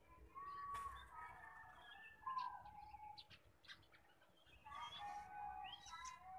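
Faint zebra dove (perkutut) calls: scattered soft, short cooing notes, some falling slightly in pitch, with a few faint chirps.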